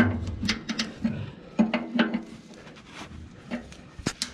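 Irregular metallic clicks and knocks from a spanner working the drum-brake adjuster on a Ferguson TE20 wheel. The sharpest knocks come near the end.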